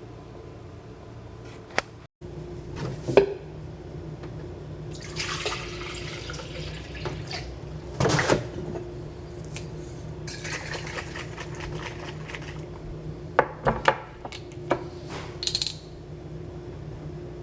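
Kitchen handling sounds: dishes and utensils knocking and clinking, with two short rushes of running water, over a steady low hum.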